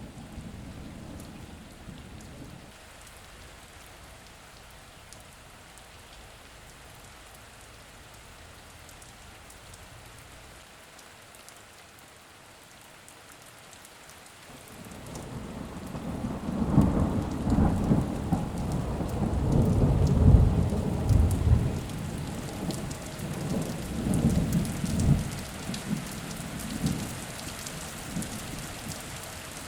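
Steady rain falling, with thunder: a low rumble dies away in the first few seconds, then a long rolling peal builds about halfway through, is loudest in the latter part, and slowly fades out near the end.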